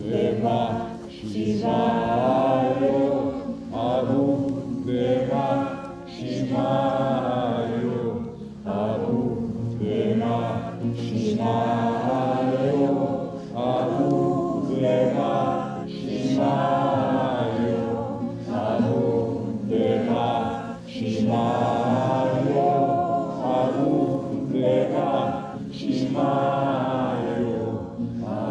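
A group of voices chanting a devotional mantra song together, in phrases of about two seconds, over a steady low drone.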